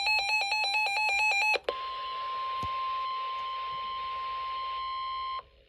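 Emergency Alert System broadcast tones: a rapid warbling electronic data burst for about a second and a half, then after a short break a steady single-pitch alert tone for nearly four seconds that cuts off suddenly.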